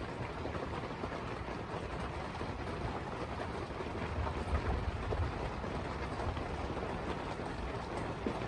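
Steady rain falling through a thunderstorm, with scattered drop ticks and a low rumble of distant thunder about four to five seconds in.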